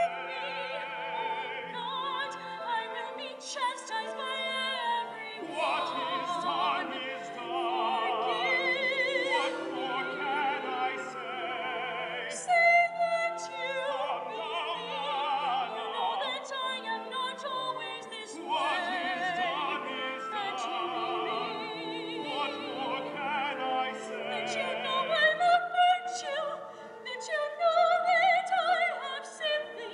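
A woman singing opera with vibrato, over instrumental accompaniment.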